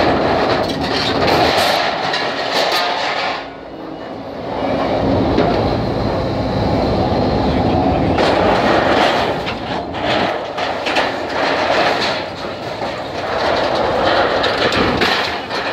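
Backhoe loader's diesel engine running under load as its bucket tears down corrugated sheet-metal shop roofing, with loud, continuous clattering and crunching of metal sheets. The noise eases briefly about three and a half seconds in, then picks up again.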